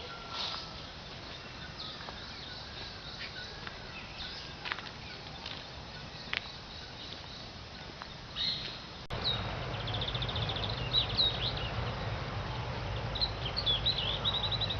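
Wild birds chirping and calling in the open. About nine seconds in, the background abruptly gets louder with a low steady rumble, and a run of rapid high trills and chirps follows.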